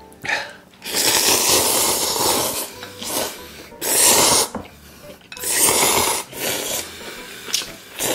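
Loud slurping of spicy cold mixed noodles, about five slurps. The first and longest lasts nearly two seconds, starting about a second in; shorter slurps follow about a second apart.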